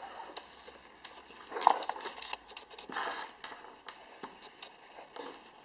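Handling noise: soft rustling and scattered small clicks, with one sharper click about 1.7 s in and another rustle about 3 s in.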